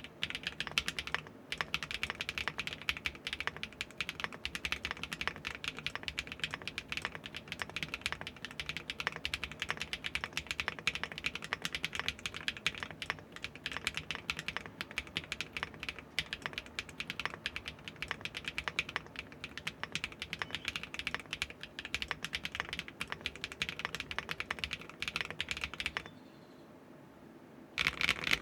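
Fast, continuous typing on a mechanical keyboard fitted with Keygeek Pomkin full-POM linear switches, with a deep, thocky sound and a slight scratch. The typing pauses briefly about 26 seconds in and starts again just before the end.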